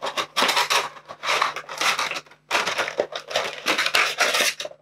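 Clear plastic bag and cardboard box of a Funko Pop vinyl figure crinkling and rustling as the figure is pulled out of its packaging, in two stretches of handling with a brief pause just past halfway.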